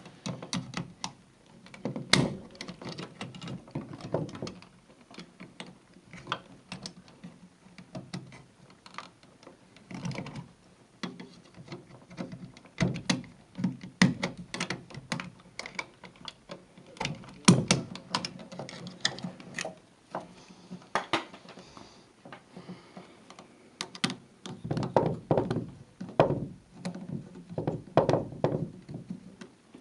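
Irregular clicks, taps and thunks of hand tools and switch hardware being handled while a dimmer switch is wired in.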